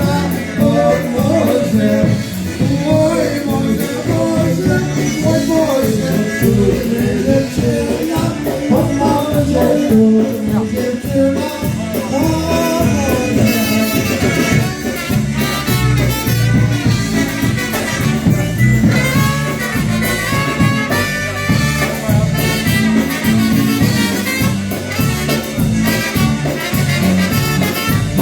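Live polka band playing a dance tune, with brass and a steady beat.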